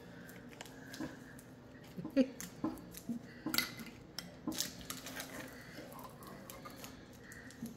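A metal spoon clinking and scraping in a glass jar of pizza sauce and against a baking pan: a scattering of light, irregular clinks as sauce is scooped out and spread.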